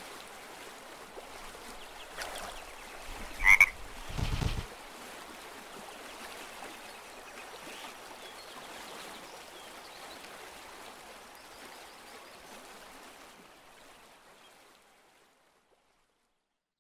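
Frogs croaking over a steady stream-and-forest ambience, which fades away about fifteen seconds in. About three and a half seconds in there is a sharp, higher-pitched sound, followed just after by a low thump.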